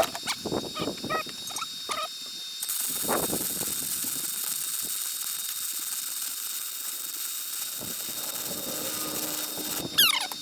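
Welding arc giving a steady hiss for about seven seconds, starting and stopping abruptly, as a bead is laid on a repair to a log splitter's four-way wedge. A few short knocks and squeaks come before it, and a short falling squeal near the end.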